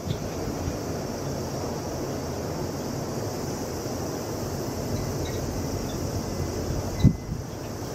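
Steady outdoor ambient noise, a low rumble with a light hiss over it, and one brief low thump about seven seconds in.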